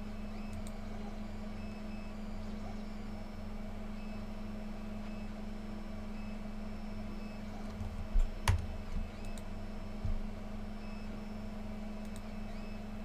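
Steady low electrical hum of the room and recording setup, with a few faint clicks. About eight seconds in come a couple of low thumps and a sharp click, and another thump about two seconds later.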